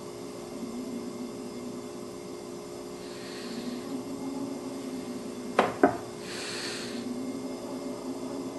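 A sharp knife cutting through a chocolate cupcake: soft scraping as the blade saws through the cake, and two quick sharp knocks about a quarter second apart a little past the middle.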